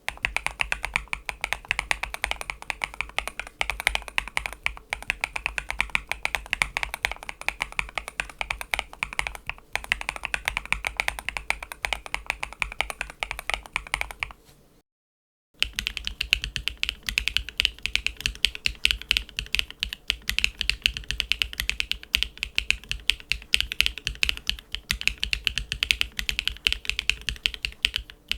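Typing on a mechanical keyboard fitted with MMD Princess Linear V4 linear switches: rapid, continuous keystroke clacks. The typing stops for a moment about halfway and then resumes with a brighter, clackier tone.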